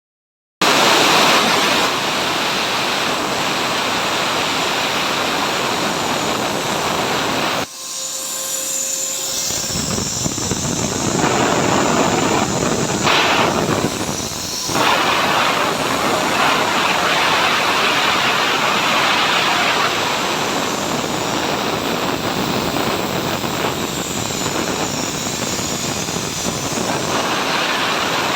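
CNC plasma cutting torch running with a loud, steady hiss of arc and air. The sound dips sharply about eight seconds in and builds back up over a couple of seconds.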